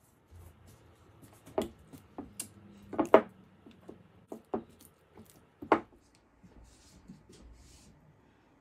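Sharp clicks and knocks against a ceramic bowl as a block of cream cheese is broken up, the loudest about three seconds in. Near the end comes a soft rustle as shredded imitation crab is tipped into the bowl.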